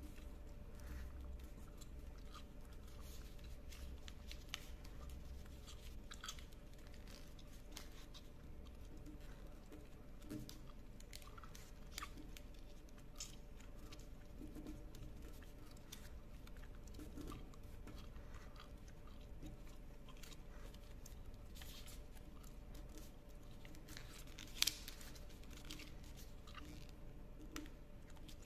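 A sheet of origami paper being folded and creased by hand: faint, scattered rustles and crinkles, with one sharper crackle near the end.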